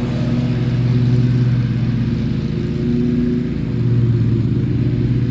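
Riding lawn mower engine running steadily while mowing, its level swelling and easing a little as it moves about the yard.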